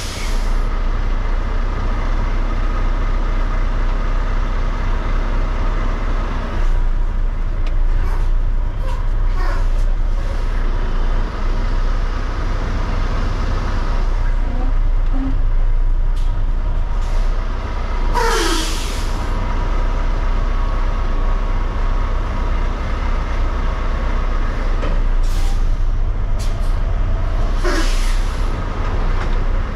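Semi-truck's diesel engine running steadily at low speed while the rig is reversed. Short air-brake hisses come about eighteen seconds in and twice more near the end.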